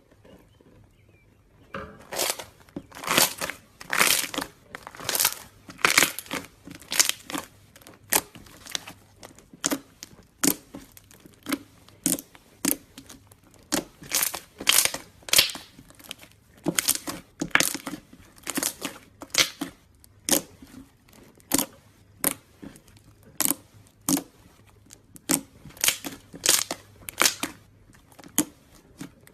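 Slime being squished and kneaded by hand, giving short crackling bursts about one or two a second, starting about two seconds in.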